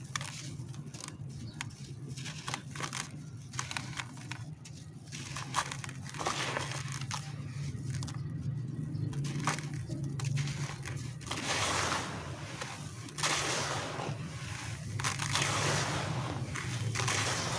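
Dry, gritty sand-cement concrete being crushed and crumbled by hand over a plastic basin: crackling crunches with grains trickling down. The crumbling grows denser and louder from about six seconds in.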